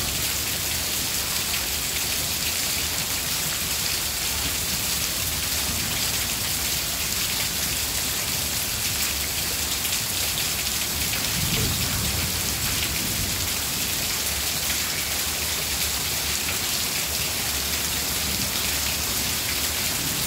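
Heavy rain pouring down on a street and parked cars, a dense steady hiss.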